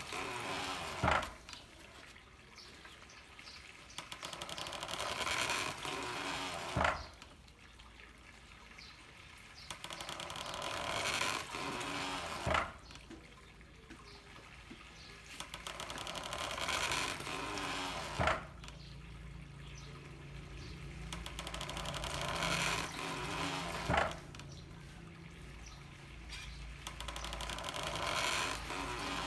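Handmade water-powered corn mill beating steadily. Water pours from a bamboo pipe for a few seconds, then the mill strikes once with a sharp knock, the cycle repeating about every six seconds, five knocks in all.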